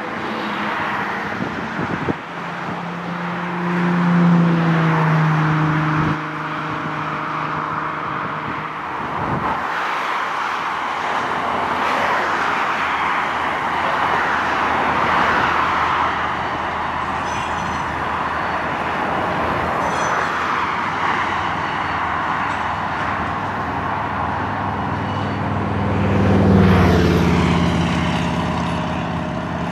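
Steady traffic noise with engines passing close by: one about four seconds in, and a louder one near the end whose pitch drops as it goes past.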